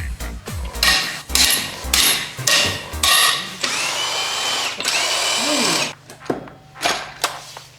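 A power tool running in short bursts, then in one steady whining run of about two seconds that stops abruptly, during the teardown of an engine. Background music with a steady low beat plays in the first few seconds.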